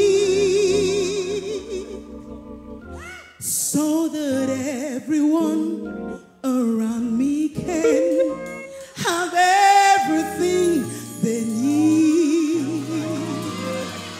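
A female gospel singer holds a long note with vibrato that fades away, then sings on in phrases that slide up and down, with organ accompaniment under the voice.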